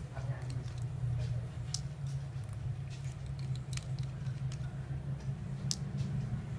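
Small sharp clicks and taps at irregular spacing, about two a second, from a smartphone being handled and pried apart. The loudest click comes near the end. A steady low hum runs underneath.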